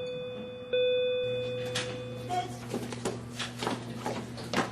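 A bell-like chime struck once under a second in, ringing down over about a second and a half. It is followed by a low steady hum and irregular clicking and knocking noises.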